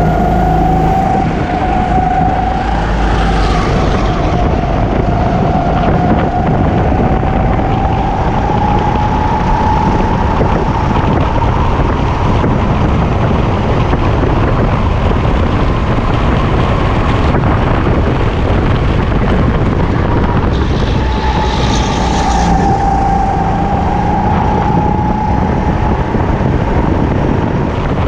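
Racing kart engine running hard under the driver, its whine climbing slowly over the first ten seconds, dropping about twenty seconds in, then climbing again as the kart accelerates, over a heavy low rumble.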